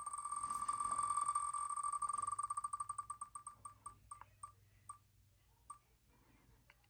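Wheel of Names spinner ticking as the wheel spins: rapid, evenly pitched ticks that slow steadily as it decelerates, thinning to single ticks a second or so apart before the wheel stops on a name.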